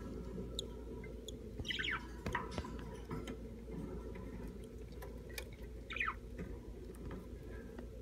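Budgerigars chirping softly: two thin calls, each falling in pitch, about two seconds in and again about six seconds in, over a steady low hum and a few faint ticks.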